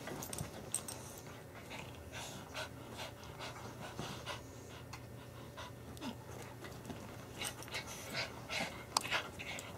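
Two small dogs play-fighting, with quick irregular panting and huffing breaths.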